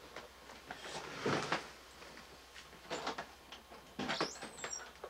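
A few short knocks and rustles, the loudest about a second in, with a brief high squeak about four seconds in.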